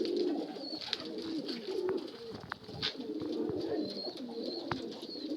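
Domestic pigeons cooing continually in a loft, with several low rolling coos overlapping and scattered sharp taps.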